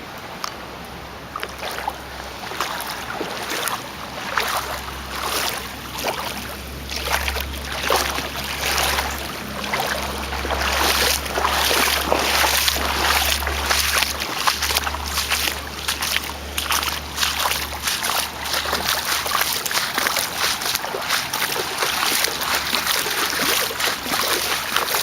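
Footsteps wading through street floodwater, the water splashing and sloshing with each stride.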